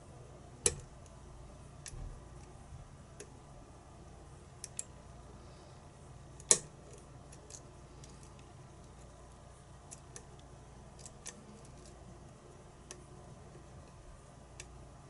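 Small sharp metallic clicks and ticks from lock picking tools working in a pin-tumbler challenge lock, with two louder clicks, about a second in and just before halfway, and fainter ticks scattered between.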